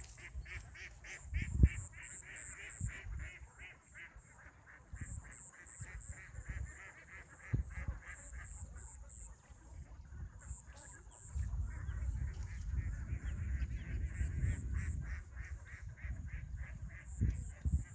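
A rapid series of animal calls at about three a second, with a short break about four seconds in, over a faint high-pitched pulsing and a low rumble that grows louder in the second half.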